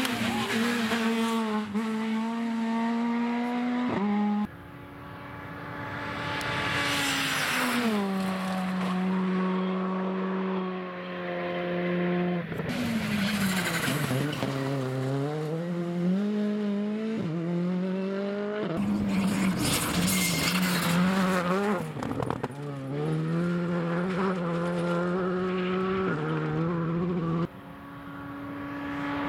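Rally cars at full stage speed, one after another: high-revving engines climbing through the gears and dropping sharply as they lift and brake, with stretches of tyre and road noise.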